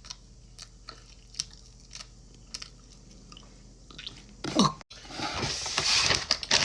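Someone chewing a soft cornbread snack, with faint scattered mouth clicks. Near the end come a short voiced sound from the mouth and then a louder, noisy rustle.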